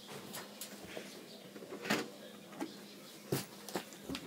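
Scattered light clicks and knocks of plastic Nerf blasters being handled, the clearest about two seconds in and again just past three seconds.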